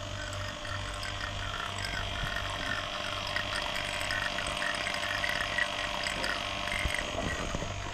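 Refrigeration vacuum pump running steadily with a hum and a whine, evacuating a split AC's refrigerant lines before it is charged.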